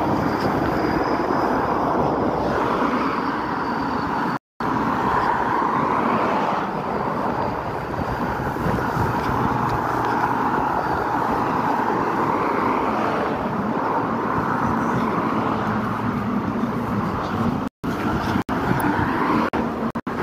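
Road traffic noise from cars passing on a street: a steady rushing sound that swells and fades. The sound cuts out completely for an instant twice.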